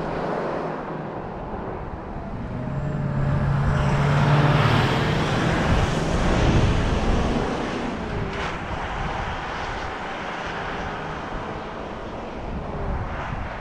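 Toyota LandCruiser 76's 4.5-litre turbo-diesel V8 driving past and away, with a steady low engine drone. It builds to its loudest about four to seven seconds in, then fades as the vehicle recedes down the road.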